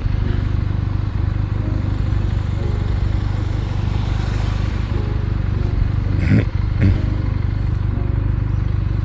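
Benelli 300 motorcycle's parallel-twin engine running steadily under way, with two short knocks in quick succession about two-thirds of the way through.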